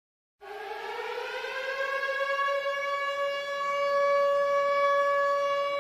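Air-raid siren sound effect: one wailing tone that starts about half a second in, climbs in pitch over the first second or so, then holds steady.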